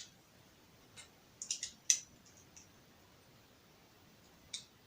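Plastic LEGO pieces clicking and tapping as they are handled and pressed together: a few short, sharp clicks spread out, the loudest about two seconds in.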